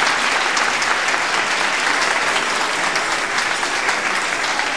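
Audience applauding steadily, a hall full of hands clapping.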